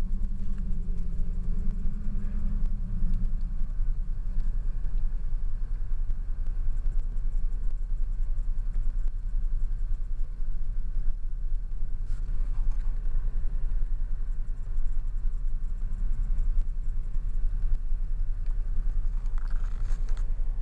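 Car heard from inside the cabin: a steady low rumble of engine and road noise.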